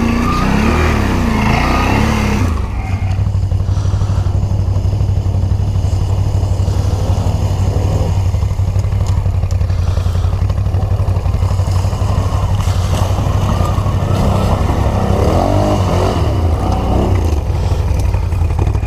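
Can-Am Outlander ATV engine running under way, a steady low drone, with the engine speed rising and falling briefly at the start and again a few seconds before the end.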